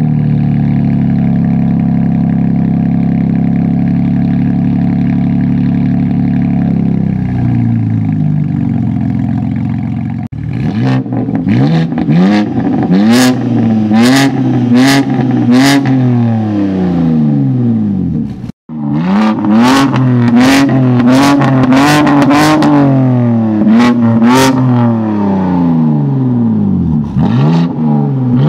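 BMW G82 M4 Competition's twin-turbo inline-six idling steadily at the tailpipes, then, from about ten seconds in, revved in repeated short blips that rise and fall in pitch. Sharp exhaust pops and cracks come between the revs.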